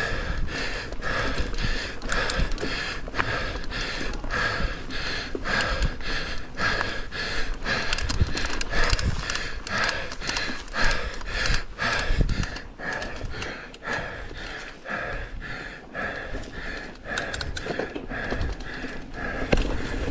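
A mountain biker panting hard in repeated breaths, about two a second, from the effort of pedalling, over the rattle and rumble of the bike on a dirt trail.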